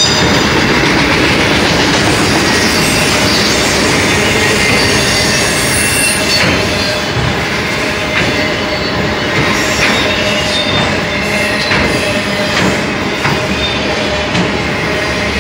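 Loaded auto rack cars of a CSX freight train rolling past close by: a loud, steady rumble and rattle of wheels on rail, with a thin squealing tone from the wheels. From about six seconds in, irregular sharp clicks of wheels passing over rail joints.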